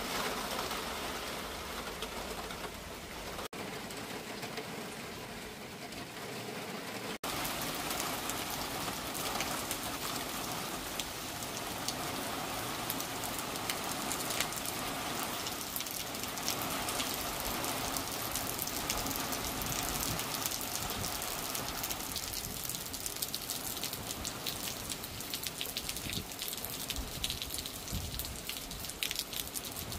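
Steady rain falling on trees and leaf-covered ground: an even hiss of rainfall with many small drops ticking, more distinct in the second half.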